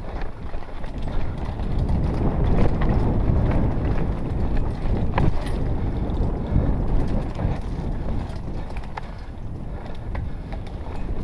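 Mountain bike ridden fast over a rocky dirt trail: heavy wind rumble on the GoPro's microphone, with tyres rolling over dirt and stones and sharp knocks and rattles from the bike as it hits rocks, a loud one about five seconds in.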